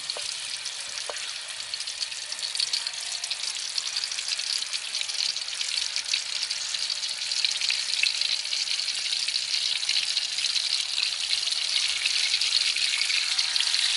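Pieces of water snake frying in hot oil in a metal wok: a dense crackling sizzle that grows gradually louder.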